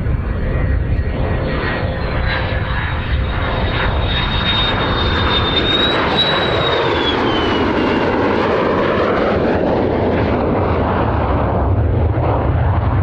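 Lockheed F-16C fighter's jet engine on landing approach: a loud steady rumble with a high whine over it. The whine drops in pitch about six to eight seconds in as the jet passes.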